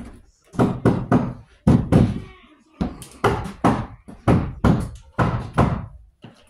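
A quick series of knocks and thuds, about two or three a second, as someone hunts for wire strippers and cutters.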